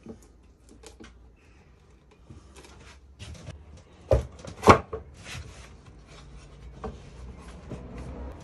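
Pieces of pallet wood being handled on a wooden workbench: wood scraping and rubbing on wood, with two loud wooden knocks about four seconds in.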